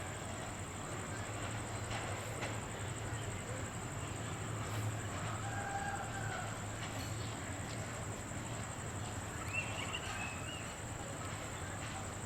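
Outdoor ambience with a steady hum and a constant high-pitched whine, and a rooster crowing once in the distance about six seconds in. A shorter, higher bird call follows near ten seconds.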